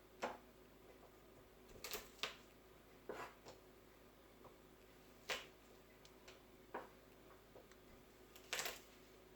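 A kitchen knife knocking on a cutting board at slow, irregular intervals, about ten sharp taps, some of them doubled, in a quiet room.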